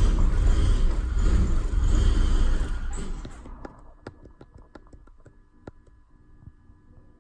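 BMW E46 engine running rough, then dying away about three seconds in as it stalls. Faint scattered clicks and a low steady hum follow.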